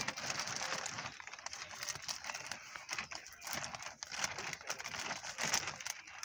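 Camouflage tarp rustling and crinkling as it is pulled and adjusted by hand, coming and going unevenly with small crackles.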